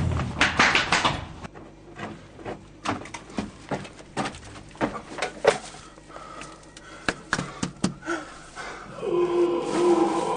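Irregular knocks and scuffs, like hurried footsteps and bumps in a narrow corridor, then a low, drawn-out growling moan that starts about a second before the end.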